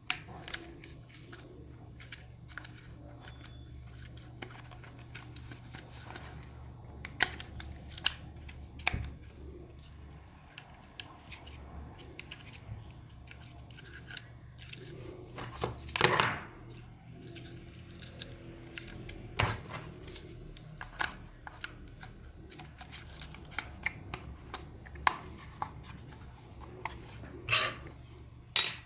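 Irregular clicks, taps and scraping of small parts and tools being handled on a workbench, over a steady low hum, with a longer, louder rustle about sixteen seconds in.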